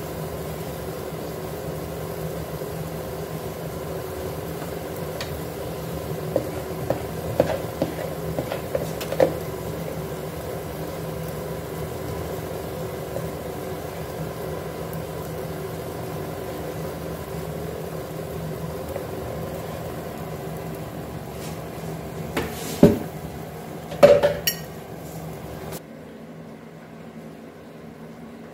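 Cooking pots, dishes and utensils clinking: a few light clinks, then two louder knocks near the end, over a steady hum that cuts off suddenly just after them.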